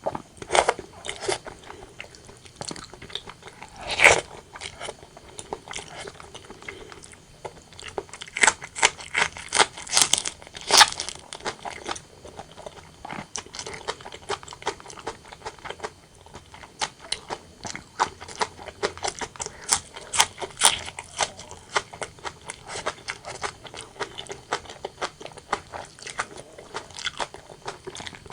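Close-miked eating sounds of a person chewing and biting braised pork belly and rice: irregular wet clicks and crunches. There is one loud bite about four seconds in and a quick run of them a few seconds later.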